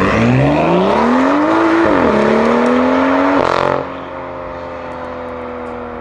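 BMW M2 F87's turbocharged straight-six with an Armytrix aftermarket exhaust accelerating hard: the engine note rises, drops with an upshift about two seconds in, and rises again. Near four seconds the driver lifts off and the sound settles to a quieter, slowly falling note.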